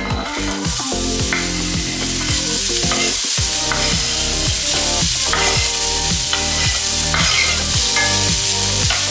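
Diced zucchini and onion sizzling as they are tipped into a hot, freshly sprayed cast-iron skillet; the sizzle starts as they hit the pan and keeps going. Background music with a steady beat plays underneath.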